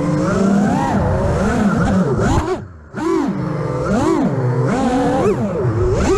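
Armattan Rooster FPV freestyle quadcopter's motors and propellers whining, the pitch swooping up and down again and again with the throttle. A little before halfway the sound drops away briefly as the throttle is cut, then climbs back.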